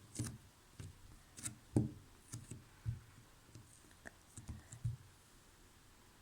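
Slime being squeezed and poked by hand: about ten irregular soft clicks and squelches, the loudest about two seconds in, stopping near the five-second mark.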